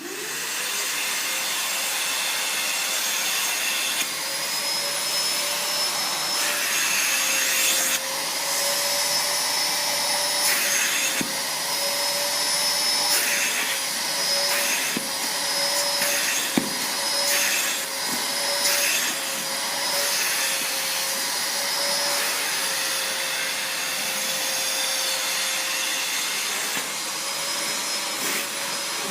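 Lavor Pro GBP 20 washing vacuum cleaner switched on, its motor spinning up within the first second and then running steadily with a whining tone. The suction hiss shifts as it works, with a few light clicks along the way.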